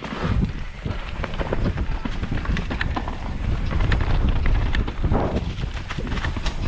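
Mountain bike riding over a rough trail: wind buffeting the microphone with a steady low rumble, under many sharp clicks and rattles from the tyres and bike.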